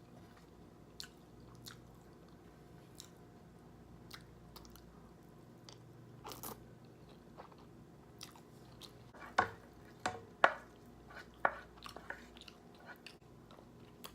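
Someone chewing a mouthful of creamy pasta, with faint wet mouth clicks; a cluster of sharper clicks comes in the second half.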